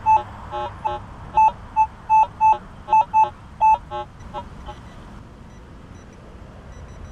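Minelab CTX 3030 metal detector sounding a target: about a dozen short, loud beeps in quick succession over the first four seconds as the coil is swept across a buried object.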